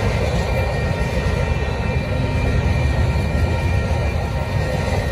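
Double-stack intermodal freight train rolling past a grade crossing: a steady, loud, low rumble of wheels and cars on the rails, with faint steady high tones over it.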